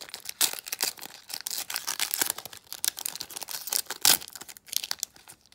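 Plastic wrapper of a Donruss football card pack being torn open and crinkled: a busy run of crackles and rips, with the sharpest crack about four seconds in. The pack is being ripped roughly and mangled.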